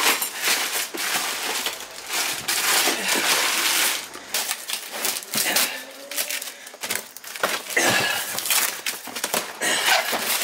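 Hands rummaging through packets of zip ties and electrical parts in a plastic tote, with plastic packaging crinkling in irregular bursts, then cardboard boxes being handled and their flaps pulled open with dry rustling and scraping.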